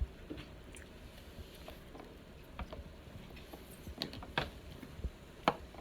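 Alka-Seltzer tablet fizzing in water under a layer of oil: a faint sizzling, with scattered small pops as bubbles burst, a couple of them louder.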